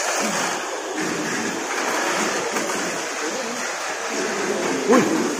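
Mini 4WD cars racing on a plastic track, one an S2 chassis with a Torque-Tuned motor: a steady whirring hiss of small electric motors and gears running at full speed. A brief loud sound cuts in near the end.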